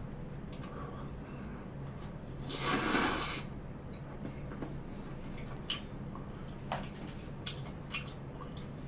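A person slurping a mouthful of jjamppong noodles, one loud wet slurp lasting about a second, about three seconds in. It is followed by soft chewing with a few small wet mouth clicks.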